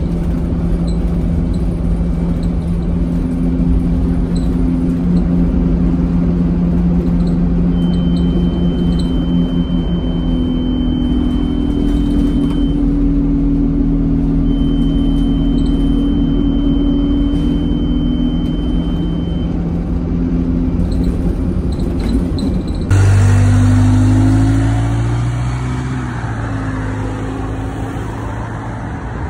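Alexander Dennis Enviro 200 single-deck bus's diesel engine heard from inside the passenger saloon, running steadily as the bus drives, with a high steady tone sounding twice for about five seconds each. About two-thirds of the way in it switches to the bus heard from outside, pulling away from a stop with its engine rising in pitch as it accelerates.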